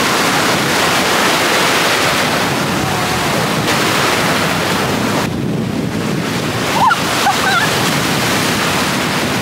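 Ocean surf washing in steadily, with wind buffeting the microphone; the hiss thins for a moment about five seconds in.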